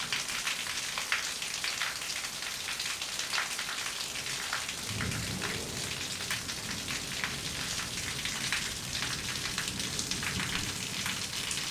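Rain falling steadily, with many close drops striking a surface. A low rumble comes in about five seconds in and carries on.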